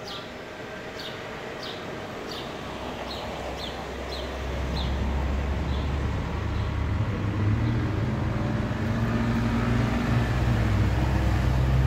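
A bird repeats a short high chirp about every half second, fading out about five seconds in. From about four seconds in, a motor vehicle's engine grows louder and keeps running close by, low and steady.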